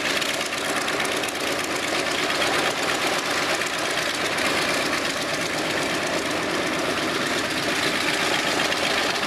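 Vought F4U Corsair's Pratt & Whitney R-2800 eighteen-cylinder radial engine idling as the fighter taxis, running steadily with fast, even firing pulses.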